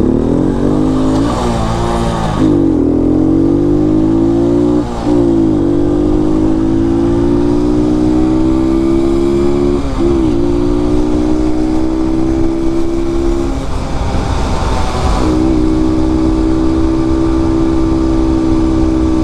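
127cc single-cylinder four-stroke sportbike engine under way: its note climbs under throttle and drops briefly at each gear change about four times, then holds steady at cruising speed.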